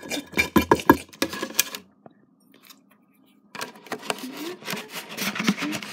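Household objects being handled: a quick run of knocks and rattles, then a pause of about a second and a half, then shuffling and rustling.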